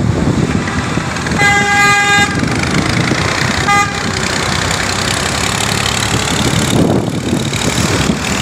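Road traffic passing on a wet road, with a vehicle horn honking: one held honk of about a second starting about a second and a half in, then a short toot of the same pitch a couple of seconds later.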